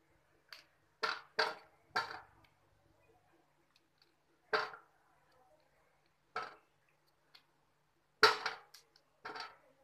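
Pieces of coconut clattering against a stainless-steel bowl as they are handled and dropped in: about eight sharp knocks at uneven intervals, the loudest near the end.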